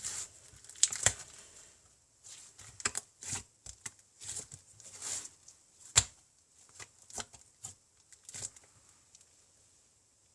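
Butter slime (slime kneaded with Model Magic clay) being spread and pressed out, giving irregular sticky crackles and pops, with a sharper snap about six seconds in.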